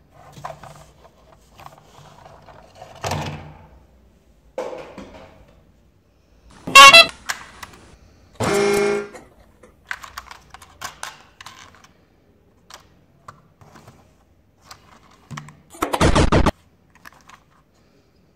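Plastic toy trains clicking and rattling as they are handled. Three short, loud electronic horn-like tones sound from a toy: a chirping one about seven seconds in, a steady one a second and a half later, and another near the end.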